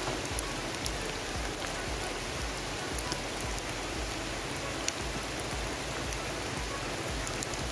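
Steady rain falling, an even hiss with scattered drops ticking sharply close to the microphone.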